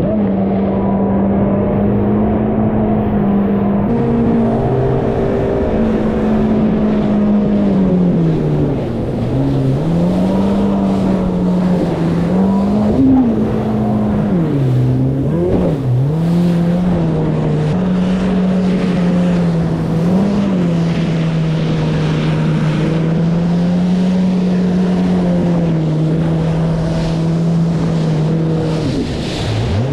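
Yamaha WaveRunner jet ski engine running at speed with a steady drone. Its pitch drops and climbs several times as the throttle eases off and opens again, between about nine and sixteen seconds in.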